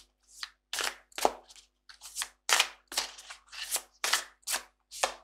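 A deck of tarot cards being shuffled by hand. It makes a regular run of short papery swishes, about two to three a second.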